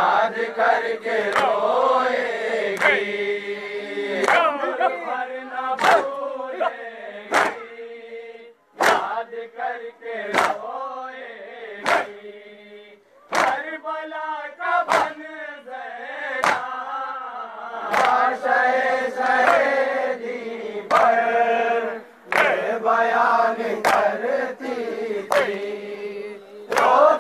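Male mourners chanting a farewell noha (Shia lament) together. Sharp beats come about every second and a half in time with the chant: hands striking chests in matam.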